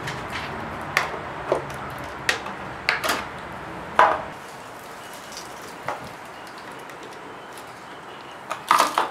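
Hard plastic clicks and knocks as the cover of a car's underhood fuse and relay box is unclipped and lifted off and the fuel pump relay is pulled from its socket. The loudest knock comes about four seconds in, with a quick cluster of clicks near the end.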